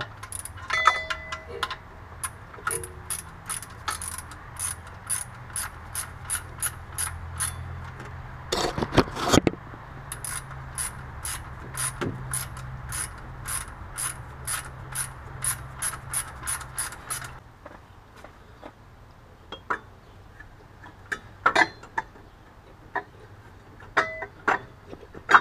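Hand socket ratchet clicking evenly, about two clicks a second, as bolts on the front of the engine are run in and tightened. There is a louder rattle about nine seconds in. The clicking stops after about seventeen seconds, leaving a few scattered knocks of tools on metal.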